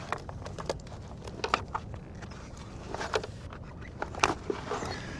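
A string of short knocks and clicks from gear and a freshly caught bonita being handled on a fishing kayak, over a steady low rumble.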